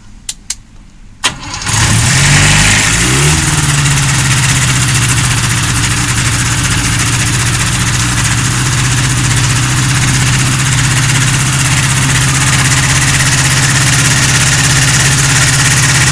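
Amphibious microlight trike's engine being started: a few sharp clicks, then the engine catches about a second and a half in. Its pitch climbs briefly, then it settles into a steady idle with the pusher propeller turning.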